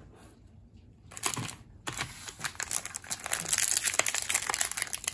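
Plastic wrapper of a baseball card fat pack crinkling and tearing as it is handled and ripped open by hand. It starts about a second in and grows busier.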